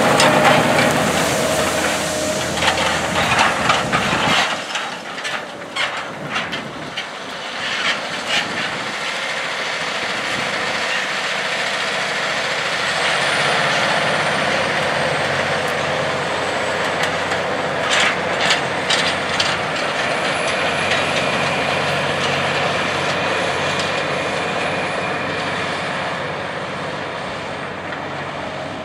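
John Deere 9620R tractor's Cummins QSX15 six-cylinder diesel running under load as it pulls an anhydrous ammonia toolbar, with irregular rattles from the implement. The sound eases off near the end as the rig moves away.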